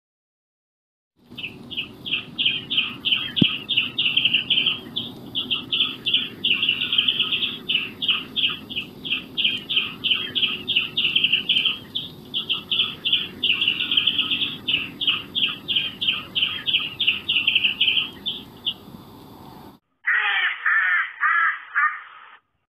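A bird calling in a long, rapid series of short, high-pitched calls, about three or four a second. Near the end, after a brief gap, a different animal call with arching, bending pitch takes over.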